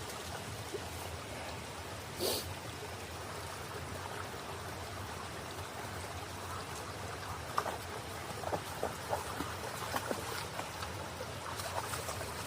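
Low-running salmon stream trickling steadily over its bed, with a few short light clicks and knocks near it in the second half.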